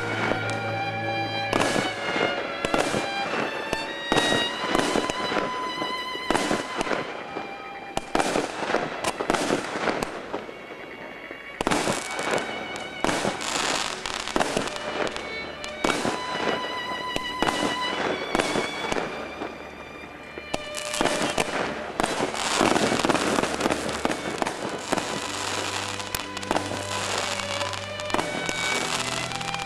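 Men Shun 'Mexican Wave' 79-shot fan barrage firework cake firing a long run of rapid shots and bursts, with two brief lulls, over background music.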